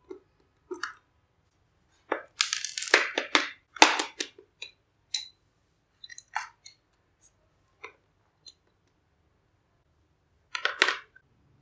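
Hard plastic housing of a hot glue gun being handled and pried open after its screws are out: a run of scraping, clicking and cracking from about two to four seconds in, then scattered light clicks and taps, and another short burst of clicks and cracks near the end as the shell halves come apart.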